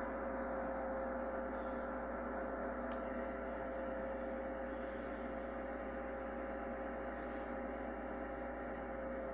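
Steady hum with several held tones, one stronger than the rest, coming through a television's speaker.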